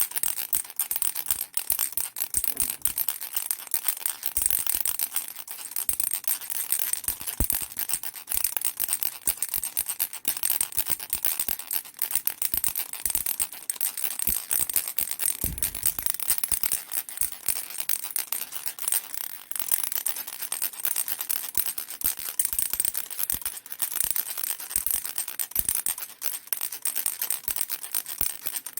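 A baby rattle shaken fast and steadily: a dense, bright clatter of many tiny ticks without a break.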